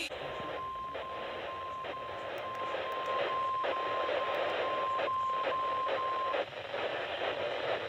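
A single alert tone near 1 kHz beeping in regular pulses, about two a second, over steady radio hiss that is cut off at about 4 kHz, as from a narrowband receiver. A few faint static clicks come through, and the beeps stop about six seconds in, leaving only the hiss.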